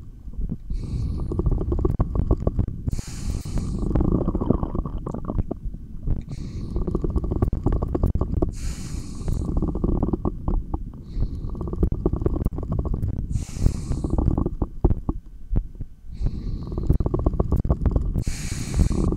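Body sounds picked up by a stethoscope. Deep breaths come in and out about every five seconds, the recovery breathing after a long breathhold. Under them is a steady low rumbling and thumping from the heart and stomach.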